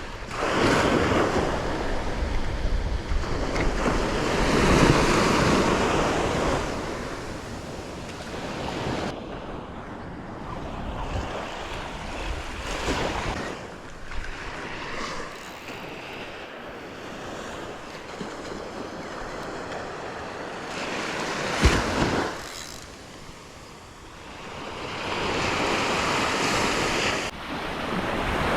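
Surf breaking and washing on the beach in swells that rise and fall, with wind buffeting the microphone. A single sharp knock about two-thirds of the way through.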